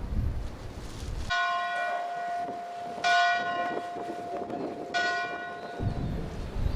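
A church bell strikes three times, about two seconds apart, each stroke ringing on and fading. Wind buffets the microphone before the first stroke and again near the end.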